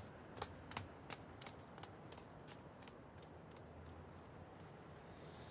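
Footsteps of a dog walking away: evenly spaced light clicks, about three a second, fading away.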